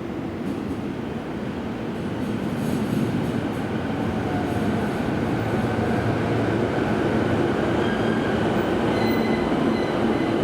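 Toei Shinjuku Line train running into the platform, its rumble growing louder over the first few seconds and then holding steady. Thin high squealing tones come in over the last few seconds.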